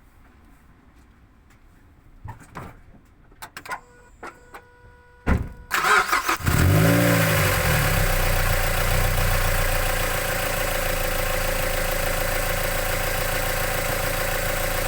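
Mazda MX-5 NC1's 2.0-litre MZR four-cylinder engine, fitted with aftermarket cams and a cold air intake, heard from under the bonnet as it starts. A few clicks come first, the starter cranks briefly about five seconds in, and the engine catches with a rev flare that falls back to a steady idle with loud intake noise, easing slightly about ten seconds in.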